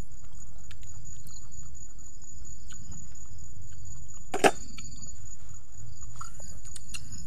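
Insects calling steadily outdoors in two high, thin tones over a low steady rumble, with one sharp click about four and a half seconds in.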